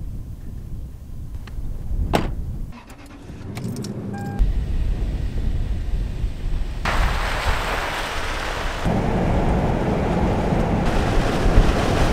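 Toyota Sequoia SUV being driven off: a car door shuts with a thump about two seconds in, followed by small clicks and a short beep, then the engine runs and, from about seven seconds in, steady road and wind noise of the moving vehicle fills the sound.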